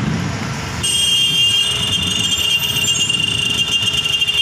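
Tunnel construction machinery: a low engine rumble, joined about a second in by a steady high-pitched whine that holds on.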